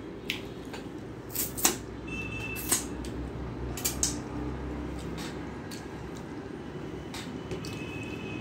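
Eating by hand from a steel plate: a scattering of sharp, irregular clicks and taps of fingers on the plate and of mouth sounds while eating. A low rumble sits underneath for a few seconds in the middle.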